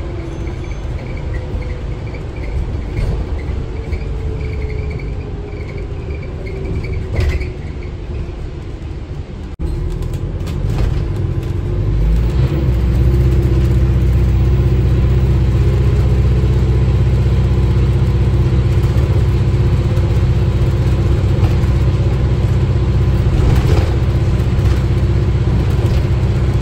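Alexander Dennis Enviro400H hybrid bus from the upper deck: the electric drive's whine falls steadily in pitch as the bus slows under regenerative braking. About twelve seconds in, the diesel engine cuts in with a loud, steady low rumble that holds as the bus drives on.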